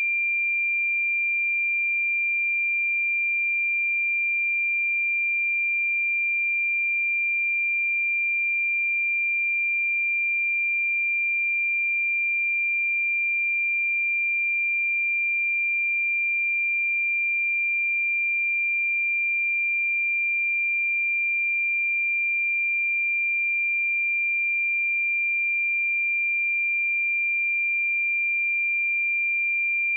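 A steady pure sine-wave test tone at 2381 Hz, one unchanging high-pitched pitch held at constant level, used for testing speakers and headphones.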